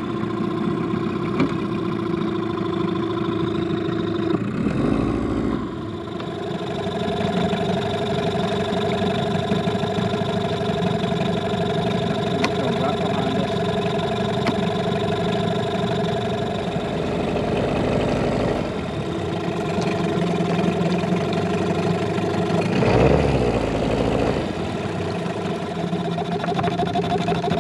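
Boat motor running steadily at low speed, with a short low rumble about five seconds in and again near the end.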